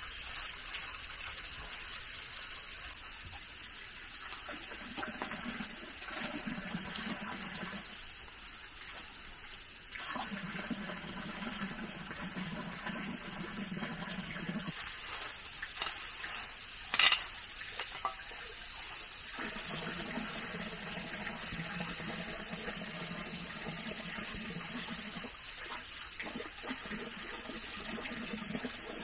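Water running and splashing, with a lower rush that comes and goes in spells of a few seconds. A single sharp knock about seventeen seconds in is the loudest sound.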